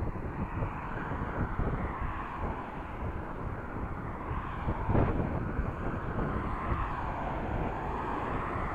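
Wind buffeting a chest-mounted camera's microphone while cycling into a headwind, a steady rushing noise with a louder gust about five seconds in.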